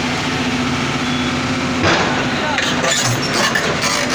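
Heavy diesel engine idling steadily, with people's voices and a single clank about two seconds in.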